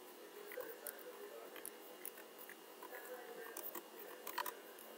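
Computer keyboard keys clicking in quick, irregular taps as a message is typed, with a louder flurry about four and a half seconds in.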